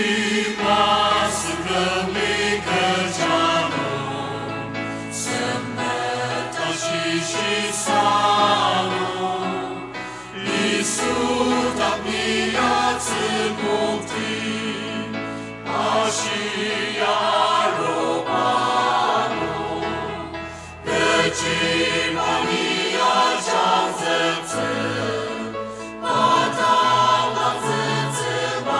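A mixed choir of men and women singing together, phrase after phrase, with short breaths between the phrases.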